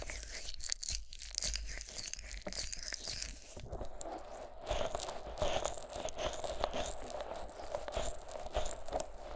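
Fingers rubbing thick Vaseline over the silicone ears of a 3Dio binaural microphone, making a dense, sticky crackling with many small clicks.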